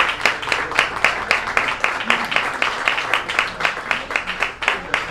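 Audience applauding: many hands clapping together in a dense, continuous patter.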